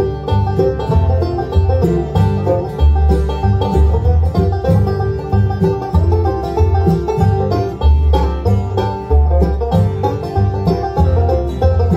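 Bluegrass band playing without singing: mandolin, five-string banjo, acoustic guitar and upright bass, with the bass notes on a steady beat.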